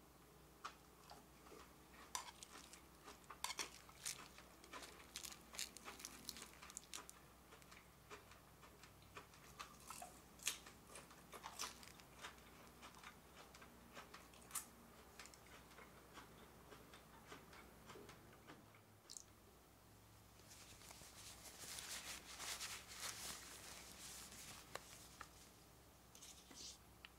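Close-miked chewing of a crisp lettuce leaf wrapped around canned fish flakes: many short, sharp crunches through the first half. About three-quarters through, a few seconds of rustling as a packet is handled.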